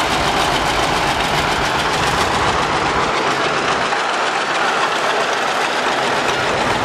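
Antique John Deere two-cylinder tractor engines running as the tractors drive past, an even popping exhaust beat. The deep bass drops away about three seconds in.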